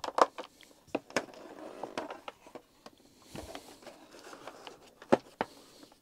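Handling noise from fitting screws into the plastic motor housing of a Numatic Henry vacuum cleaner: scattered small clicks and taps of plastic and metal, with faint scraping between them.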